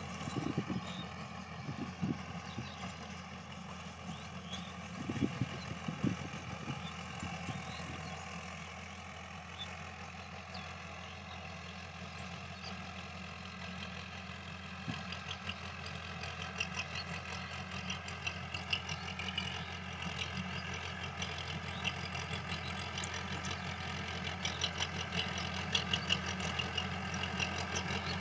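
Tractor diesel engine running steadily while pulling a rotary tiller through soil, growing louder over the last ten seconds or so as the tractor comes closer.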